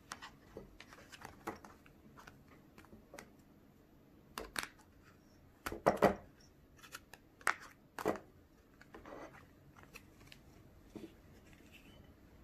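Thin plastic mould tray of a Popin' Cookin' kit clicking and crackling as it is upended and its domes are pressed to pop the moulded pieces out onto a plate. The clicks come irregularly, the loudest cluster about six seconds in.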